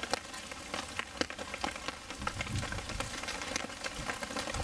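Hail and rain pattering steadily: a dense hiss of many small ticks from falling hailstones striking the wet trampoline mat.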